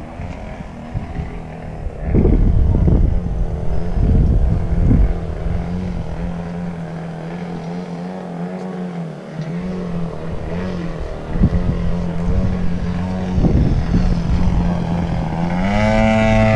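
RC model airplane engine running with a steady drone, its pitch wavering slightly. Near the end it rises in pitch and gets louder as it is throttled up.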